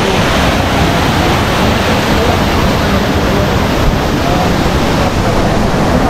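Kuang Si waterfall: water pouring and splashing in a loud, steady rush.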